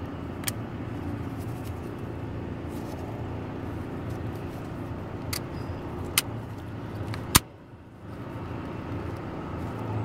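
Steady low background rumble, with four sharp clicks from the plastic ignition switch being handled. The loudest click comes about seven seconds in, and the rumble drops away briefly right after it.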